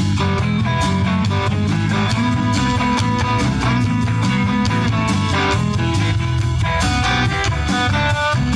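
Live band playing a guitar-led rock-blues number, with electric guitar lines over bass and a drum kit keeping a steady beat.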